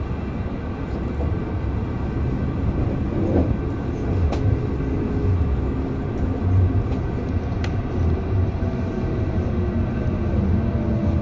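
MI09 RER A electric train running between stations, heard from on board: a steady low rumble of wheels on rail with a faint motor whine, and two sharp clicks, about four and eight seconds in.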